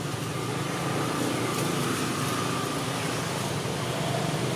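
A steady low mechanical hum, like an engine running, with no clear events in it.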